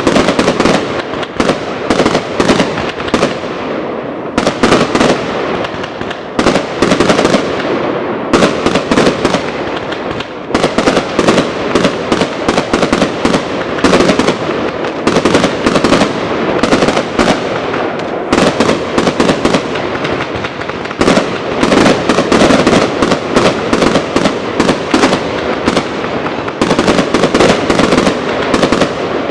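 Fireworks going off non-stop: dense bangs and crackling, several blasts a second over a constant rumble, with no break.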